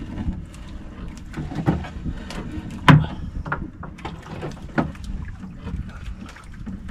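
Knocks and bumps on a small fishing boat over a steady low rush of water and wind, with one loud thump about three seconds in.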